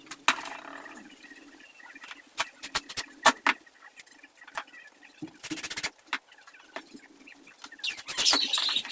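Sharp clicks and knocks from fitting metal hinges to plywood pieces with screws and a drill, with a short rasping burst just past the middle and high-pitched chirping near the end.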